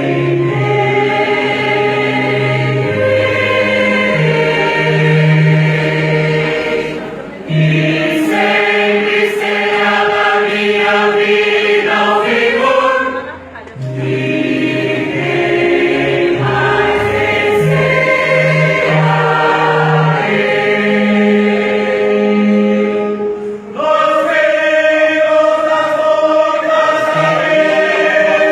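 Choir singing a gospel hymn in several-part harmony, in long held phrases with brief pauses for breath between them.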